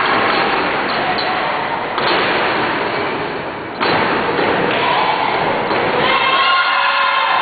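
Heavy thuds of wrestlers' bodies hitting the ring canvas, two sudden thumps about two and four seconds in, over a steady hall din; a voice shouts near the end.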